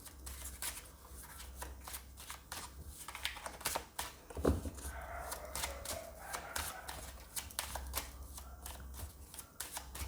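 Tarot cards being shuffled and handled: a run of quick, irregular soft clicks and flicks of card on card.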